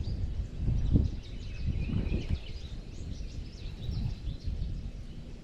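Gusty wind rumbling on the microphone, with many small birds chirping and singing over it.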